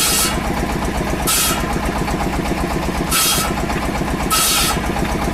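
A machine's engine running steadily, with short hisses that recur every one to two seconds, four in all.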